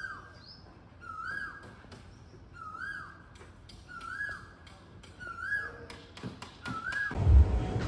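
A bird calling: the same short rising-and-falling note, six times, about once every second and a half, with faint taps in between.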